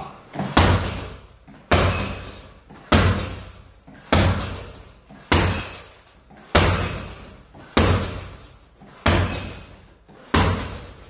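A Katsudo heavy punching bag taking hard strikes at a steady pace: nine heavy thuds about 1.2 seconds apart, each dying away over about a second.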